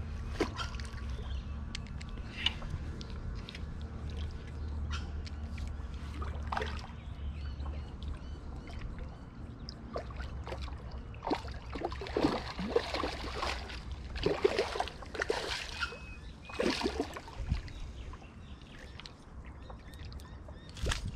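Hooked carp splashing at the surface close to the bank, with a run of loud sloshing splashes about halfway through, under a low rumble in the first half.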